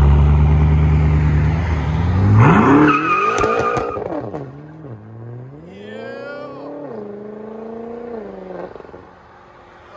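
BMW M6's 4.4-litre twin-turbo V8, with downpipes and an X-pipe and its mufflers deleted, launched hard. The revs climb sharply a couple of seconds in, with a brief high squeal, then drop and climb again through the gears while the sound fades steadily as the car pulls away.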